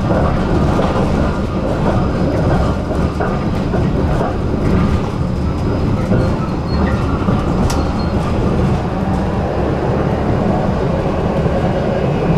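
Tram running along its track: a steady rumble of wheels and running gear on the rails, with one sharp click a little over halfway through.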